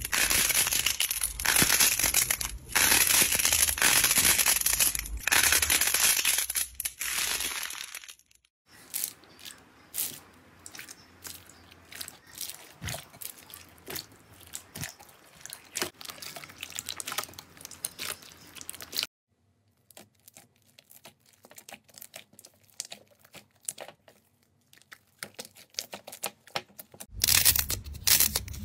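Slime squeezed and kneaded by hand, crackling and squishing. Loud, dense crackling for about the first eight seconds, then fainter, scattered pops and crackles, and loud again near the end.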